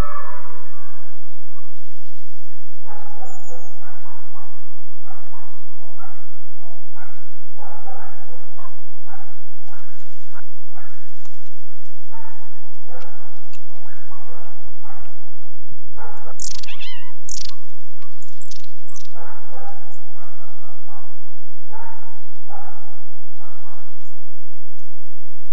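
A dog barking repeatedly in runs of short barks, with a pause in the middle that holds a few sharp clicks and rustles.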